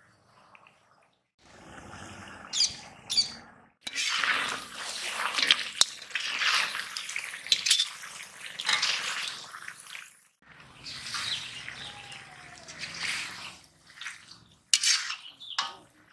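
Thick turkey curry frying in an iron kadai and being stirred with a metal spatula: scraping and sizzling in several stretches broken by short gaps.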